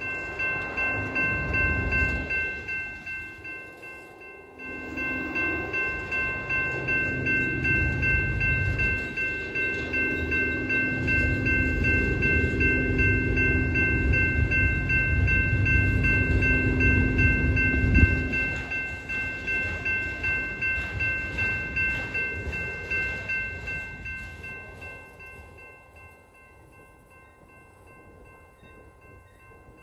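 Freight train of autorack cars rolling past: steel wheels on rail with a regular clicking about twice a second. It is loudest through the middle, with a sharp clank about 18 seconds in, then fades away over the last few seconds. Several steady high ringing tones run throughout.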